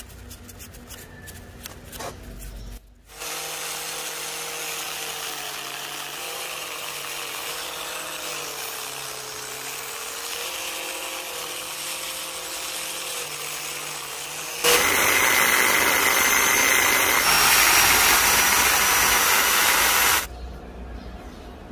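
Handheld angle grinder with an abrasive disc running against the metal body of a four-jaw lathe chuck, cleaning it. It starts about three seconds in with a steady motor whine that wavers as it is pressed on, gets much louder about fifteen seconds in, and stops shortly before the end. Faint brush scrubbing comes before it.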